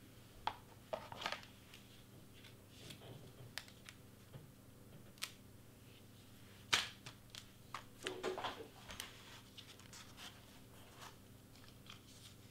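Faint scattered clicks, taps and rustles of hands handling a glue bottle and stiff cardstock on a cutting mat, with the sharpest click about seven seconds in and a rustling patch just after.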